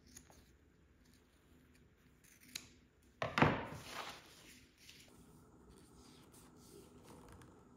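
Shears snipping through black nappa leather, a few sharp cuts. About three seconds in comes a louder, sudden clatter and rustle as the cut leather pieces are handled on the wooden workbench, fading within a second.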